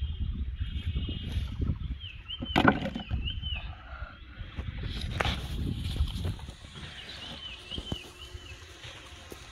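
Outdoor ambience: wind rumbling on the microphone, one sharp knock about two and a half seconds in, and a small bird's warbling chirps, once early and again near the end.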